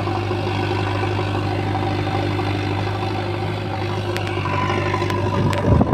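Tractor diesel engine idling steadily with an even low hum. Near the end, wind or handling noise rumbles over the microphone.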